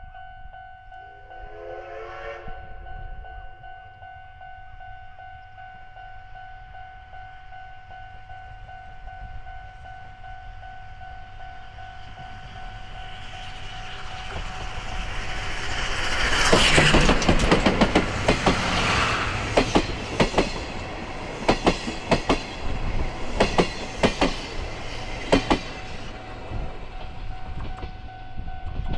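C58 class steam locomotive sounds its whistle once, about a second in, for about two seconds. The train's running noise then builds and peaks as it passes, followed by sharp wheel clacks over the rail joints, coming in pairs every couple of seconds as the carriages roll by, before fading near the end.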